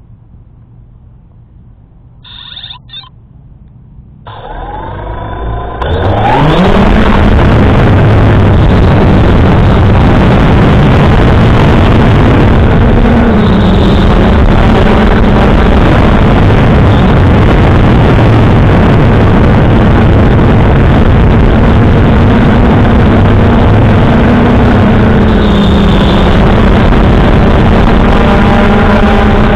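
3DR Solo quadcopter's four electric motors and propellers spinning up from rest in a rising whine about four to six seconds in, then a loud, steady buzzing hum in flight whose pitch shifts slightly as the drone climbs and manoeuvres, heard from the camera mounted on the drone. A couple of short high beeps come shortly before the motors start.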